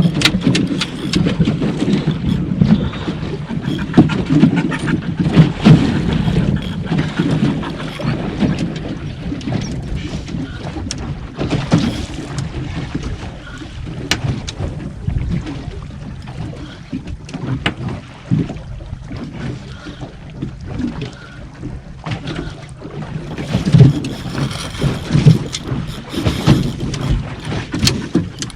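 Wind buffeting the microphone and water slapping against a small aluminium boat's hull at sea, with scattered knocks and clicks throughout.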